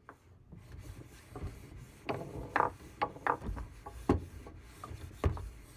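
Light wooden knocks and rubbing, about seven irregular knocks over a few seconds against a low rustle.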